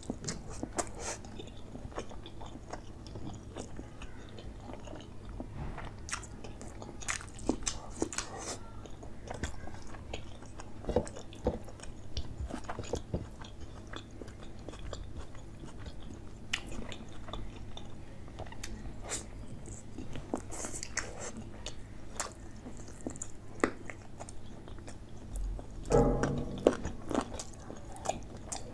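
Close-miked eating of chicken curry and rice by hand: chewing and biting with many short wet mouth clicks and smacks, along with fingers squishing and mixing rice in curry on the plate. Near the end there is a louder, deeper burst of sound.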